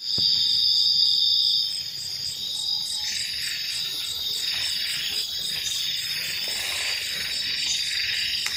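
Night insect chorus of crickets and other insects: a steady, high-pitched continuous trill, louder for the first second and a half and then settling a little lower.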